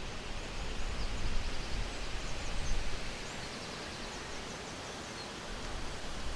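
Outdoor nature ambience: wind rumbling on the microphone, stronger in the first three seconds, with faint high bird chirps and a short trill.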